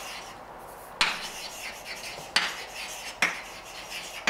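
Chalk writing on a blackboard: sharp taps of the chalk striking the board roughly a second apart, with fainter scratching strokes between them.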